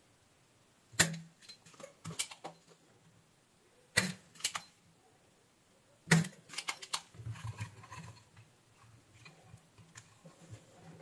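Spring-loaded desoldering pump snapping as it sucks molten solder off a circuit board's joints: a few sharp clicks a couple of seconds apart, then a cluster of lighter clicks and rattles from about six seconds in.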